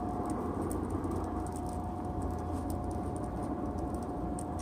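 Coal forge's air blower running steadily with a constant whine over a low rush of air, feeding a freshly lit coal fire, with light scattered ticks.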